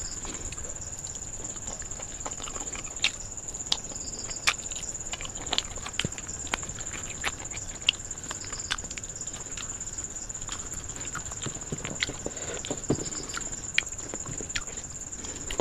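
Close-up eating sounds of a person eating rice and curry by hand: wet chewing with sharp, irregular lip-smacking clicks, and fingers scraping rice across a steel plate. A steady high-pitched whine runs underneath.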